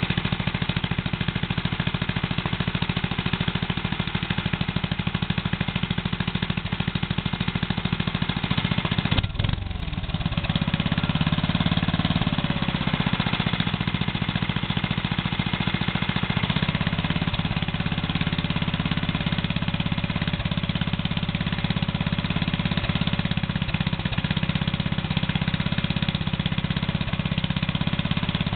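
8-horsepower Briggs & Stratton single-cylinder engine running steadily on a three-wheeler, warming up before an oil change. About nine seconds in it dips briefly, then runs a little louder.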